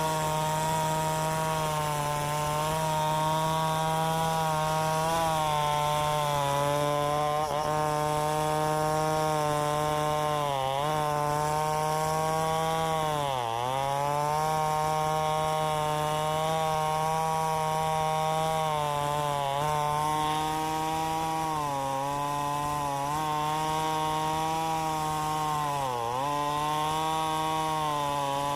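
Two-stroke chainsaw running at high speed while sawing wood. Its pitch sags briefly four times as the engine bogs under load, most deeply about halfway through.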